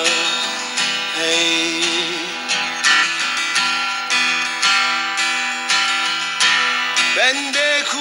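Music: an instrumental passage of a Turkish song, with plucked string instruments strumming steadily. A voice starts singing near the end.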